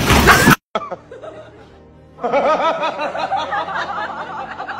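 A loud, harsh noisy burst in the first half second cuts off suddenly. From about two seconds in, people laugh in quick repeated giggles.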